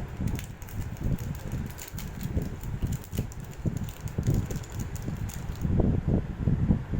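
Irregular handling noise from hands unboxing a package: low bumps and rustling with scattered light clicks.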